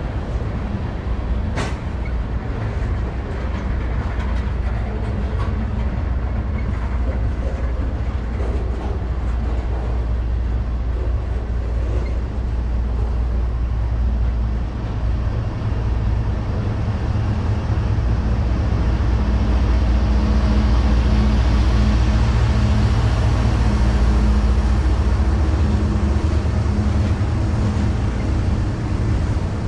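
Freight train passing, with diesel locomotive engines humming low and steady over the rumble of the rail cars. The sound grows loudest about two-thirds of the way through, and there is one sharp click just after the start.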